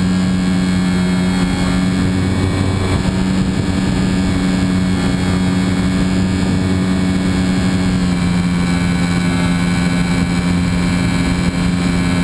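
Remote-control model airplane's motor and spinning propeller running steadily at a constant pitch, heard close up from a camera on the wing, with air rushing past. The tone shifts slightly about eight seconds in.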